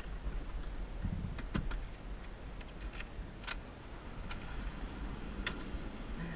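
Scattered light clicks and knocks of things being handled inside a Toyota's cab, over a low steady rumble.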